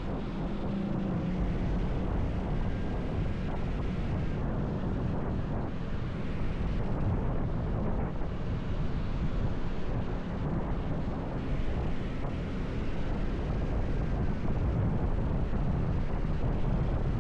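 Wind rushing over the microphone of a camera on a moving motorcycle, with steady riding noise underneath.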